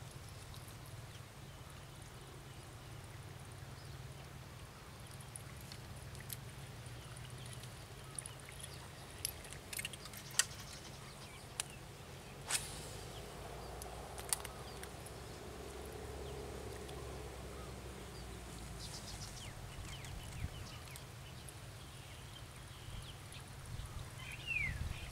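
Quiet outdoor ambience with a low steady rumble and a few scattered faint clicks, then near the end a fishing lure landing in the water with a splash as it is cast.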